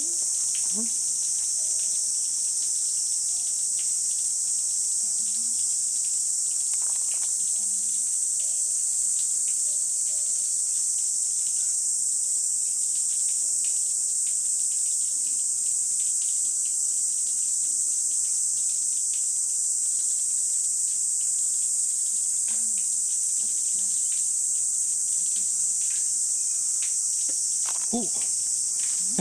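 Cicadas singing in a steady, high-pitched chorus.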